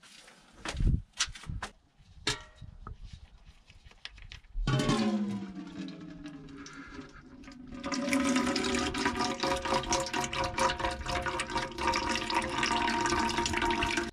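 A few clicks and knocks of a ratchet at the transfer case drain plug, then about five seconds in old gear oil starts pouring out of the drain hole into a catch container. It is a steady splashing pour with a ringing, pitched tone, and it gets louder about eight seconds in.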